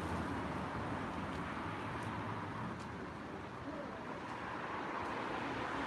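Steady outdoor street hum of distant traffic, with a couple of faint knocks from the artwork being broken apart behind the gallery's glass front, about two seconds in and again just after.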